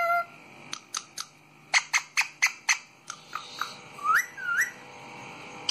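Rose-ringed parakeets calling: a whistled note falling away at the start, then a string of short, sharp, shrill calls, several in quick succession, and two rising whistled notes a little after four seconds in.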